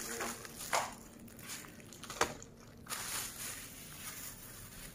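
Thin plastic carrier bag rustling and crinkling as it is handled, with two sharper crackles, one under a second in and one about two seconds in.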